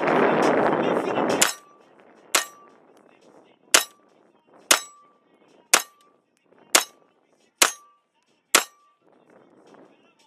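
A string of eight single gunshots, about one a second, each followed by a short metallic ring, typical of hits on a steel target. A loud rush of noise fills the first second and a half before the shots begin.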